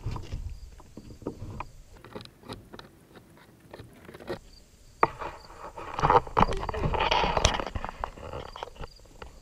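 Small clicks and taps of plastic scoring spotters being pushed into bullet holes in a paper target. A single sharp crack comes about five seconds in, followed by a louder stretch of noise.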